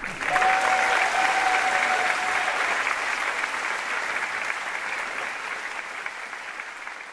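Theatre audience applauding at the end of a stage musical number, with a steady high tone held for about two seconds near the start; the clapping slowly fades.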